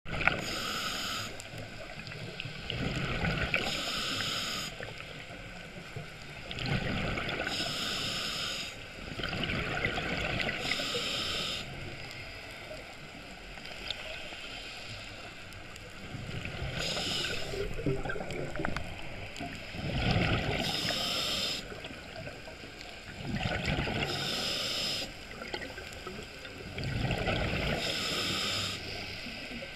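Scuba regulator breathing underwater: a hissing inhale, then a rush of exhaled bubbles, in slow, regular breaths about one every three to four seconds.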